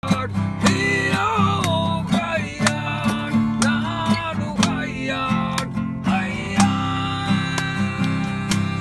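Music: a strummed acoustic guitar with a steady beat and a gliding melody line.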